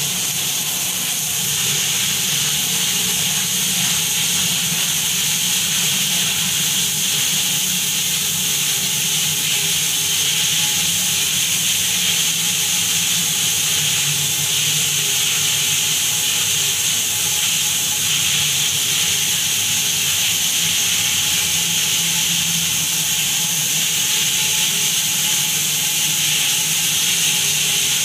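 IPX6 water-jet test chamber running: a jet from a 12.5 mm nozzle sprays onto a turntable and the glass walls with a steady hiss, over a steady low hum.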